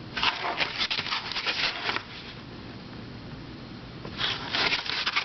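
Handling of a plastic twisty puzzle: two flurries of light clicks and rustles, one in the first two seconds and another near the end.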